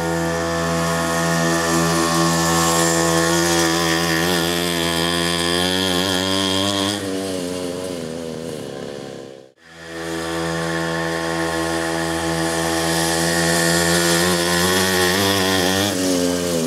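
47 cc two-stroke pocket bike engine running steadily as the bike is ridden, its pitch wavering as it passes. The engine sound drops out abruptly about nine and a half seconds in, then picks up again at the same steady note.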